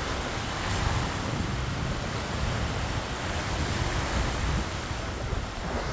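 Sea waves washing onto the shore, with wind buffeting the microphone as a steady low rumble.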